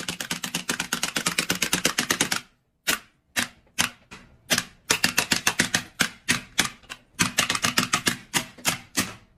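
A rapid run of crisp clicks, about ten a second, which thins out to scattered clicks for a couple of seconds about two and a half seconds in and then picks up again.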